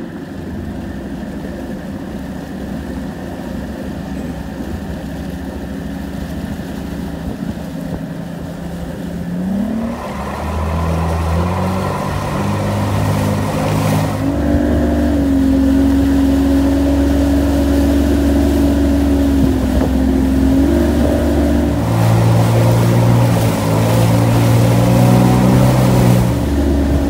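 A 135 hp two-stroke V6 Mercury outboard running under way. Its note rises about ten seconds in as it is throttled up to bring the boat onto the plane, then it runs louder and steady at just-planing speed. The engine note shifts abruptly a few times.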